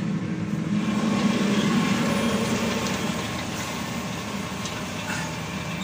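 New Holland T7.260 tractor's engine running steadily under load while pulling a plough through the field, heard from the cab with the rear window open. It is slightly louder for the first couple of seconds, then eases a little.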